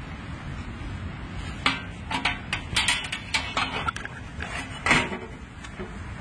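Hard objects being handled: a quick run of sharp clicks, clacks and rattles from about one and a half seconds in, ending in a louder knock near five seconds.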